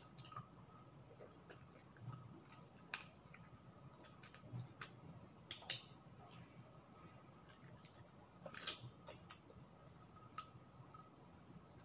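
Faint sounds of someone eating by hand: chewing, with scattered small clicks and smacks of mouth and fingers, the loudest about nine seconds in, over a faint steady hum.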